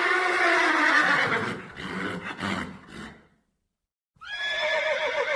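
Horse neighing: a long whinny that falls in pitch over the first three seconds.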